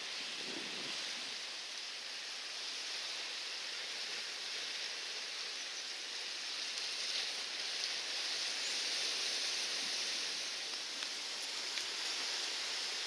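A steady, even hiss of outdoor background noise, like rushing water, with no distinct events in it.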